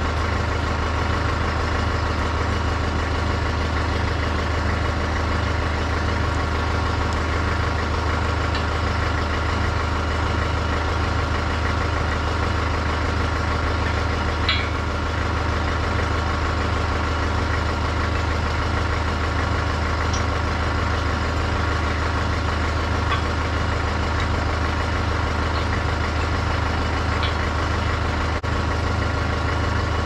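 Case 830 tractor engine idling steadily, with a light clink about halfway through.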